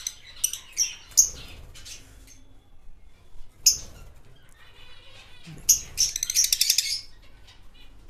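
Lutino Fischer's lovebirds calling: a few sharp, high chirps in the first second or so, a single call near the middle, then a rapid chattering run of notes for about a second and a half near the end.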